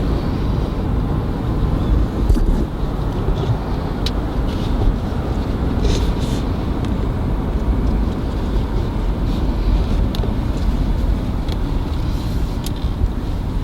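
Steady low road rumble of a car driving, with scattered light clicks and ticks.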